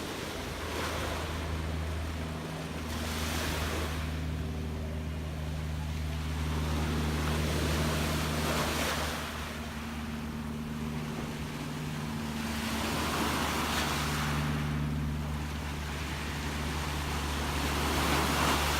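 Gentle sea waves washing onto the shore, a soft swell of surf every few seconds. A steady low mechanical hum runs underneath.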